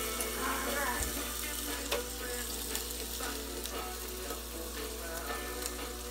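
Ground bison patties sizzling on a George Foreman contact grill: a steady hiss, with a few light clicks and knocks as the grill is handled.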